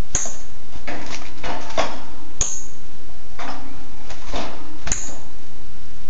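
A captive wild northern cardinal gives three sharp, high chip calls about two and a half seconds apart. Between the calls come bursts of scuffling and fluttering as it moves against the wire bars of its cage, restless and unable to settle.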